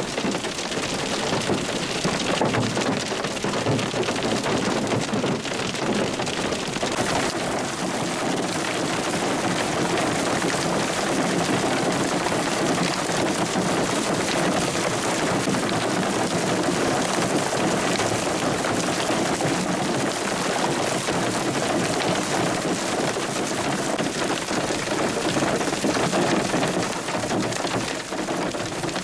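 Hail and heavy rain pelting down steadily, a dense patter of hailstones striking, growing fuller about seven seconds in.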